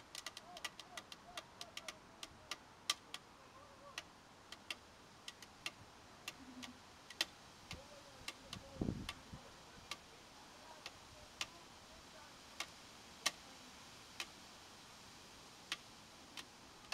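Sharp, irregular ticks and clicks from a sealed 2-liter plastic bottle of dry ice and water as the gas builds pressure inside it before it bursts; the ticks come thick at first and thin out. A single dull low thump about halfway through.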